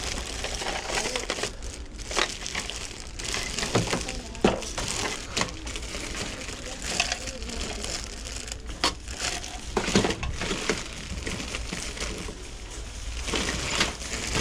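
Rustling and crinkling of handled items and packaging, with scattered clicks and knocks.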